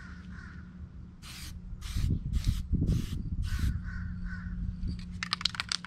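Aerosol spray-paint can hissing in five short bursts about half a second apart, then a quick run of rattling clicks near the end as the can is shaken. A crow caws a few times in the background.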